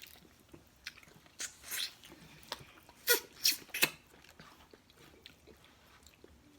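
Eating crab: shells cracking and chewing, in two short bursts of sharp crackling, one about one and a half seconds in and a louder one between three and four seconds.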